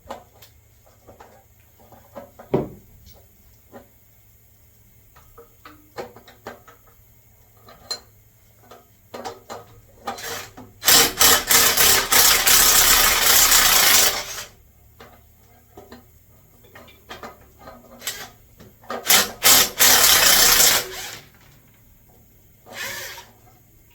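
Hand tools working the bolts off an engine's mechanical fuel pump. Scattered light metal clicks and clinks, with two loud runs of fast rasping clicking: one of about three seconds near the middle, and a shorter one later.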